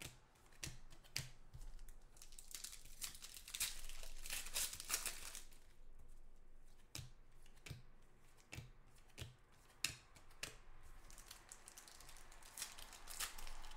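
Foil trading card pack wrappers being torn open and crumpled by hand: irregular crinkling and tearing with scattered small clicks. The crinkling comes in a thicker spell a few seconds in and again near the end.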